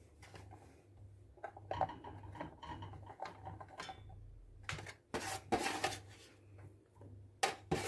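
Chopped, washed mushrooms slid from a metal tray into a stainless steel pot: soft sliding and rustling, then several louder metal knocks of the tray against the pot about five to six seconds in and a couple more near the end.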